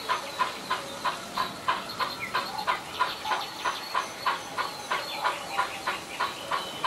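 Sampled steam-locomotive chuffs from the sound decoder and speaker of a Bachmann Baldwin 009 model locomotive, an even beat of about three chuffs a second as it runs at a steady speed.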